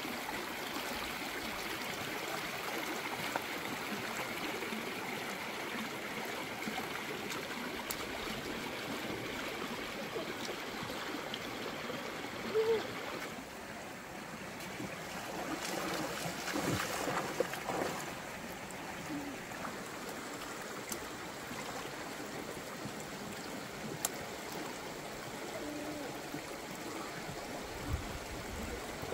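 Shallow stream running steadily over rocks, with a few short splashes of water about halfway through as hands move in it.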